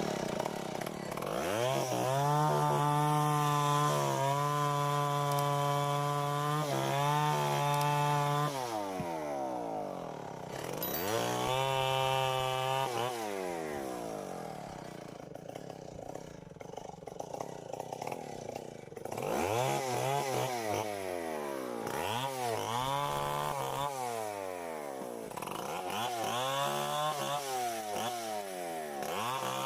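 Two-stroke chainsaw cutting mango wood. It revs up and holds full throttle for about six seconds, drops back, revs again, idles lower for several seconds, then runs in a series of shorter rising and falling revs near the end.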